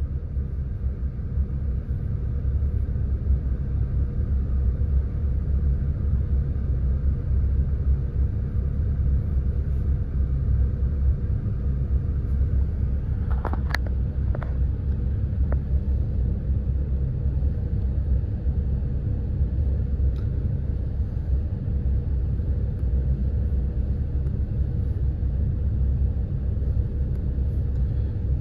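Saturn car's engine running with a steady low rumble, with a few sharp clicks a little before the middle.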